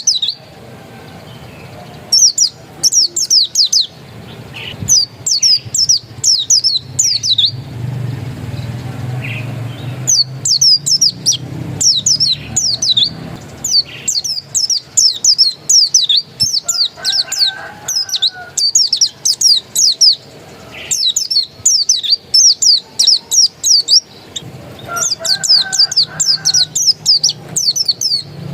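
A pleci dakun white-eye singing: phrases of rapid, high, quickly falling chirps a second or two long, broken by short pauses, over a low background rumble.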